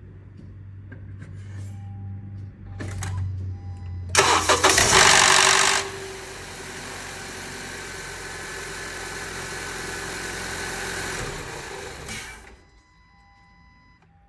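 A 2012 Honda CR-V engine is cold-started. About four seconds in comes a loud burst of noise for a second and a half as it cranks and catches, then it runs with a steady noise that the owner calls the most annoying sound and cannot diagnose. The running noise drops away about twelve and a half seconds in.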